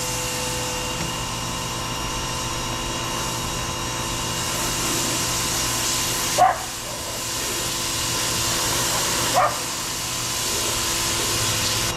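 Pressure washer running steadily, its motor and pump humming under the hiss of the spray, a cheap unit the owner finds has no power. A dog barks twice, about six and nine seconds in, and the washer cuts off at the end.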